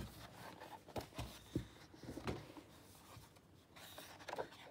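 Sheets of scrapbook paper being lifted and turned over by hand: faint paper rustling with several light knocks as the sheets and hand touch the table, mostly in the first half.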